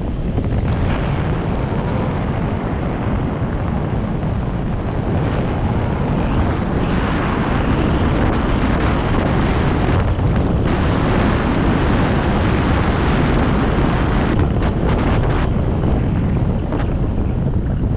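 Wind buffeting the microphone of a rider moving fast downhill: a deep, steady rush of noise.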